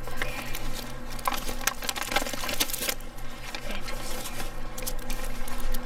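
Irregular rustling and crinkling as a found paper clue is handled and opened, with quick clicks and crackles over a faint steady hum.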